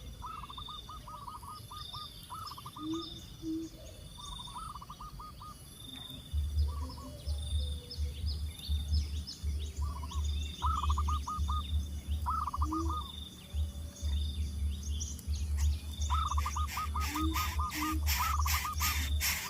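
Birds calling: a rattling, stuttering call repeated several times, among scattered high chirps and a steady pulsing high tone. From about six seconds in a low rumble runs underneath, and near the end a rapid crackling noise comes in.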